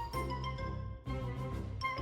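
Background music: a bass line under bright melodic notes, the notes changing about every half second.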